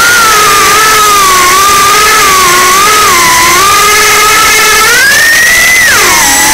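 Electric motors and propellers of a small camera drone whining loudly close to the microphone. The pitch wavers up and down as it hovers low, rises about five seconds in as it climbs, then drops back about a second later.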